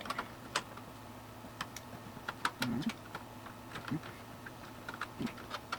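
Scattered light clicks and taps of a plastic connector and its cable being handled against a computer case while being lined up to plug in. A couple of brief low murmurs come in about the middle.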